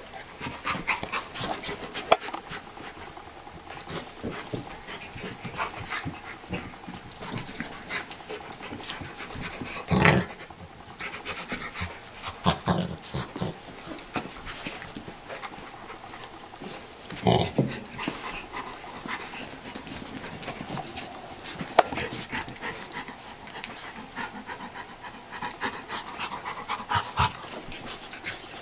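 Beagle puppy and Rottweiler play-wrestling: the dogs' breathing and the scuffle of their bodies and paws on carpet, with brief louder bursts about ten and seventeen seconds in.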